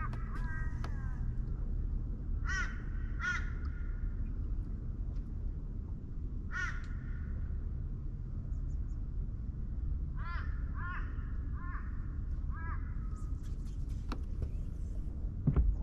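A crow cawing in short calls: a few spaced out, then a quick run of about five about ten seconds in. A low steady rumble runs underneath, with a sharp knock near the end.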